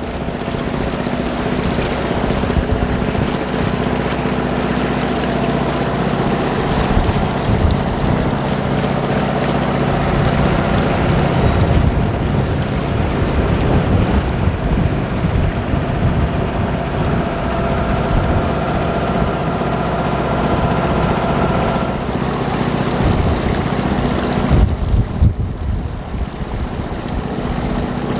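Motor launch's engine running steadily under way, with water washing past the hull and wind buffeting the microphone, the wind gusting harder near the end.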